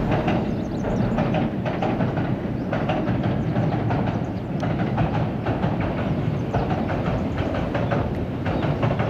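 JR West 227 series electric multiple-unit train crossing a steel truss railway bridge: a steady loud rumble of wheels on the rails and bridge, with repeated clacks from the wheels.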